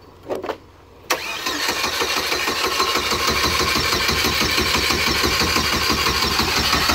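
Starter motor cranking the turbocharged Chevrolet Cavalier's engine over with an even, rapid pulsing, beginning suddenly about a second in, without the engine catching: the car won't start despite a little fresh gas just added to a near-empty tank.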